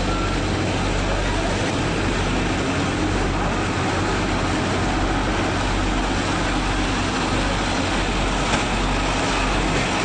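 Diesel engine of a Hypac tandem-drum asphalt roller running steadily as the roller drives over fresh asphalt, a constant low hum under an even rumble.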